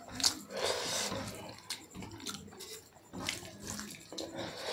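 A bare hand squishing and mixing cooked rice into runny curry gravy on a foil sheet: wet, sticky squelches with irregular short clicks.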